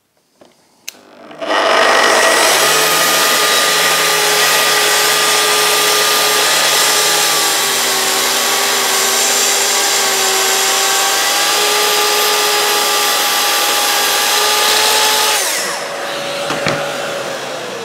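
Festool TS55 plunge track saw with its 48-tooth fine-tooth blade starting up about a second in and crosscutting a 44 mm thick ash board, running steadily for about fourteen seconds. Near the end it is switched off and the blade spins down with a falling pitch.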